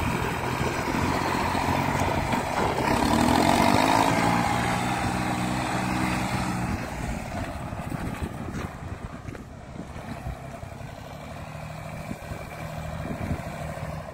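Small farm tractor's engine running steadily with a low hum. It grows fainter after about six seconds and picks up again near the end.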